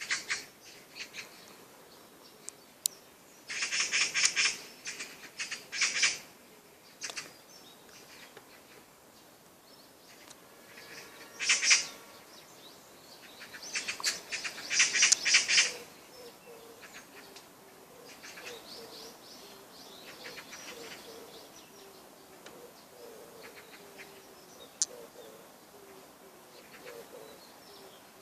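Birds calling: several loud bursts of rapid, high chattering calls in the first half, then a softer low call repeated again and again through the second half.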